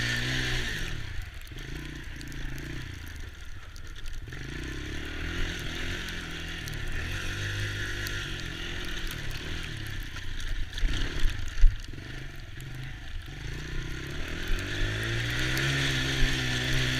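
Small youth ATV engine running and revving, its pitch rising and falling again and again, with a few sharp knocks or rattles a little past the middle.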